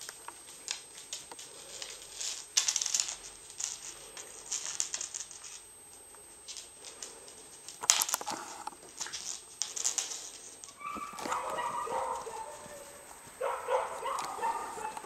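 Rough collie puppies' claws clicking and scuffling on a wooden floor as they play, then high-pitched puppy barking and yapping in two short spells during the last few seconds.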